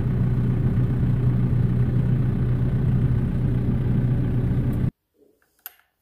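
Vehicle engine idling with a steady low hum, heard from inside the cab. It cuts off abruptly about five seconds in, leaving near silence and a few faint clicks.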